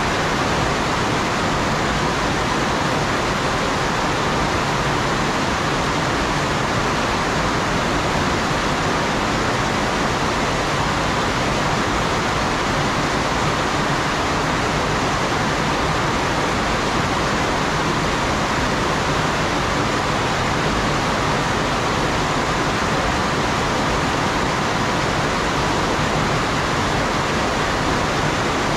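Heavy rain pouring steadily onto garden foliage and the ground, a loud, unbroken hiss that does not change.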